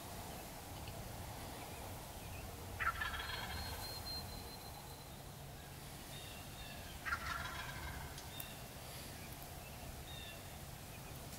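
Wild turkey tom gobbling twice, about four seconds apart, each gobble lasting about a second.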